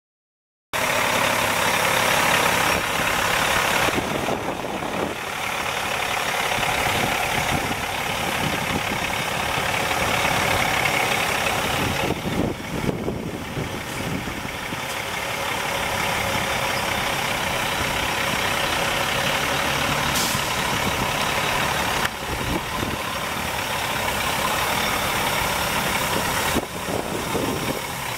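Caterpillar C13 12.5-litre inline-six turbo diesel of a Freightliner Columbia semi tractor, running at low engine speed as the truck moves slowly. The steady engine note cuts in abruptly about a second in.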